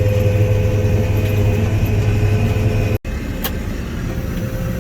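John Deere 9500 combine running, a steady drone with a faint steady whine above it. About three seconds in it breaks off for an instant and comes back with less low hum.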